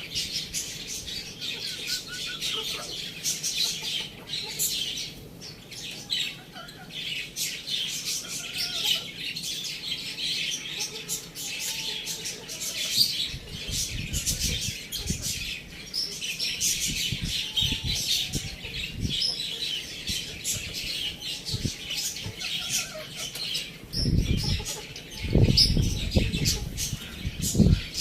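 Many small birds chirping and chattering at once in a dense, continuous twitter, with dull low thumps around the middle and again near the end.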